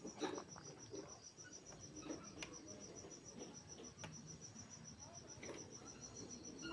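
A cricket chirping in a fast, even pulse, faint, with a few light clicks from the airgun being handled.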